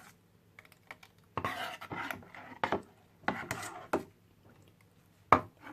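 A utensil stirring and scraping through thin crepe batter in a bowl: a few separate rasping strokes, then a sharp knock against the bowl about five seconds in.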